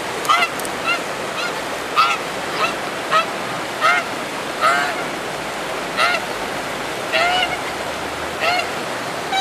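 Goose honking repeatedly, short calls about once a second, over the steady rush of a swollen, fast-flowing river.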